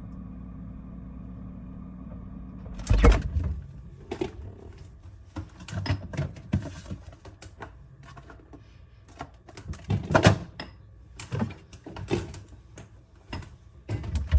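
A steady low hum for about three seconds, then a string of irregular clicks and knocks, as of objects being handled and set down, with louder knocks about three and ten seconds in.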